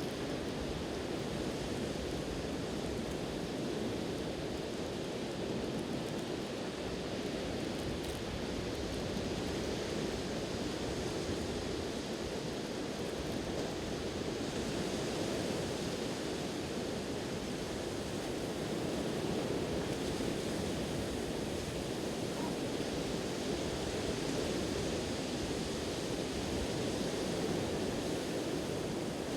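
Steady wash of ocean surf breaking on the shore, with some wind.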